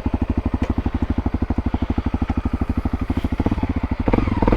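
Honda CRF250L's single-cylinder engine running at low revs with a fast, even putt, getting louder about four seconds in.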